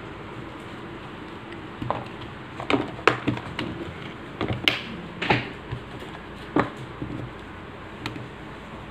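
Irregular clicks and taps of a phone's LCD touchscreen panel and the phone body being handled and set down on a cardboard surface, loudest around the middle.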